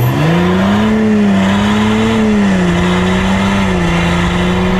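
Volkswagen Amarok's 3.0 V6 turbodiesel under hard acceleration, heard close to its exhaust with the cutout open, running through a stainless downpipe with the DPF removed. The engine note climbs steeply at the start, then holds nearly level with small wavers as the truck pulls.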